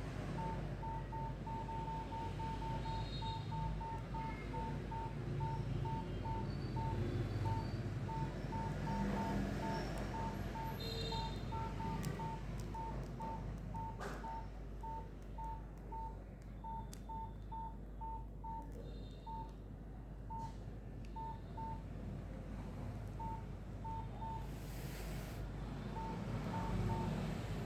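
Nokia 3120 classic keypad tones: short beeps, all at the same pitch, one for each key press while scrolling through the phone's menu. They come in a quick run at first, then at about two a second, and grow sparser with pauses after the middle.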